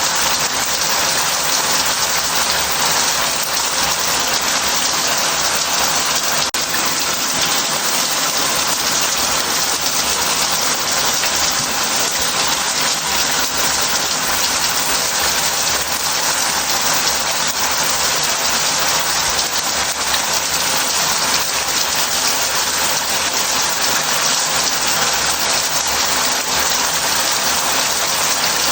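Shower head running into a bath: a steady, even hiss of spraying water that does not change.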